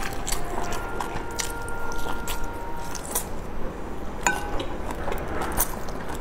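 Close-up sounds of a person biting and chewing a large boiled dumpling dipped in sauce, with scattered wet mouth clicks.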